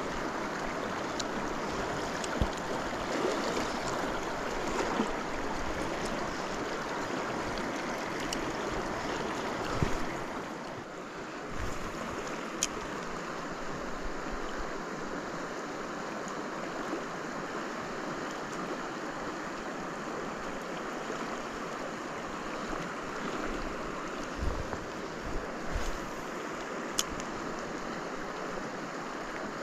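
Steady rushing of a mountain river's flowing water, with a few faint clicks and knocks scattered through it.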